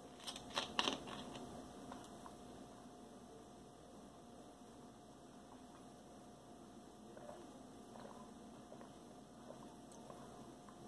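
Screw cap of a plastic soda bottle being twisted open, a few sharp clicks and crackles in the first second. After that, quiet room tone with a faint steady hum and a few soft ticks.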